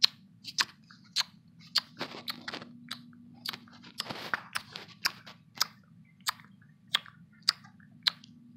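A run of sharp clicks, about one every half second to two-thirds of a second, over a low steady hum, with two brief rustles about two and four seconds in.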